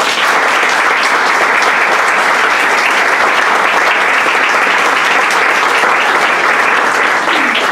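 Audience applauding: a loud, steady round of clapping that starts abruptly and tapers off near the end.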